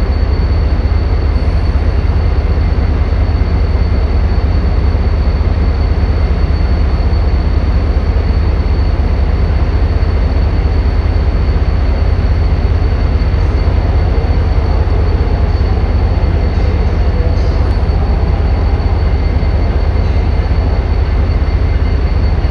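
A train's steady rumble, heavy and low, with a faint steady high-pitched whine over it.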